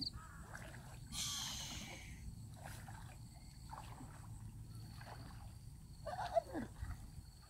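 Water being poured and sloshed out of a container holding freshly caught fish, with a short splashing pour about a second in, then quieter sloshing.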